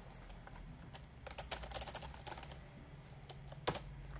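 Typing on a computer keyboard: a quick run of keystrokes lasting about a second, a few scattered key taps, then one sharper, louder click near the end.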